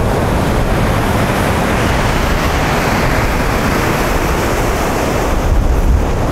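Heavy storm surf on the sea, a steady loud rush, with strong wind buffeting the microphone.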